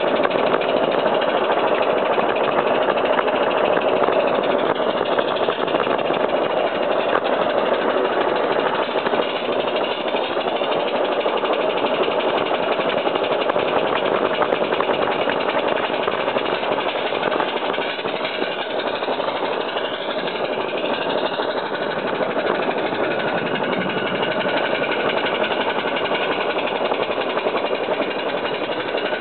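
G scale live steam locomotive working hard under load, its chimney exhaust making a steady, continuous rush, mixed with the running noise of the wagons on the track.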